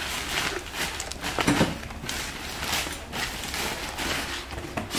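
A full cardboard box of fruit handled and set down onto a metal wheelbarrow: a handful of knocks and rustles, the loudest about a second and a half in.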